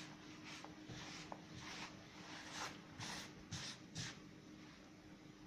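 Hands rubbing melted margarine into flour in a bowl: faint, soft brushing strokes about twice a second, a few of them louder past halfway.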